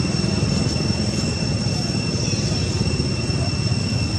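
Steady low rumble with a continuous high-pitched insect drone over it.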